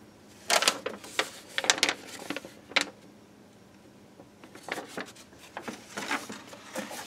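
A sheet of paper rustling and crinkling as a folded letter is opened out and handled: several short rustles in the first three seconds, a quieter pause, then more rustling in the last two seconds.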